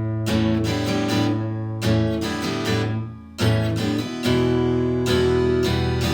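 Acoustic guitar strumming chords, each strum ringing on, with a brief fade and a fresh strum about three and a half seconds in.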